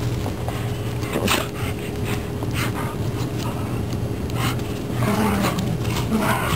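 Old English Sheepdogs playing in snow: short scuffling noises, and a brief low dog sound about five seconds in.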